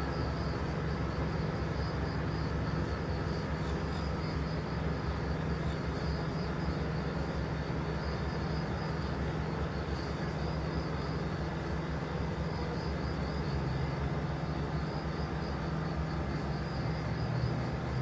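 Autumn insects chirping in a steady, evenly pulsing high chorus, over a constant low rumble.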